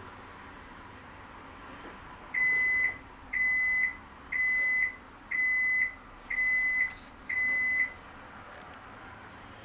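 Electronic beeper of a Toshiba AW-404 fully automatic washing machine sounding six steady, high beeps, each about half a second long and about one a second, starting a couple of seconds in.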